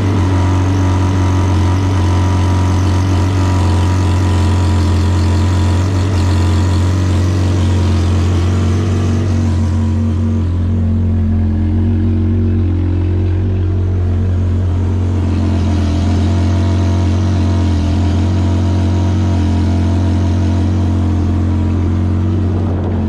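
Yamaha WaveRunner's 1.8-litre four-cylinder engine idling steadily out of the water on a freshwater flush hose, being warmed up to operating temperature for an oil change. A higher hiss over the engine hum eases off for a few seconds midway, then comes back.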